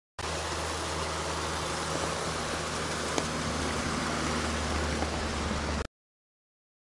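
Steady rushing of a partly frozen river's open water running between ice and snow, with a low steady hum beneath it and a single click about three seconds in; it starts and cuts off abruptly.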